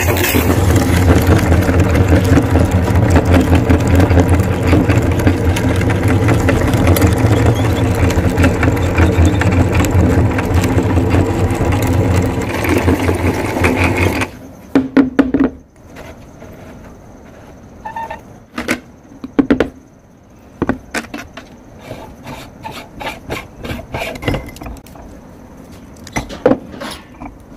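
Belt-driven meat grinder running steadily with a low motor hum while mincing eggs, stopping abruptly about halfway through. After it stops, scattered metallic clicks and knocks as the grinder's ring and cutting plate are handled.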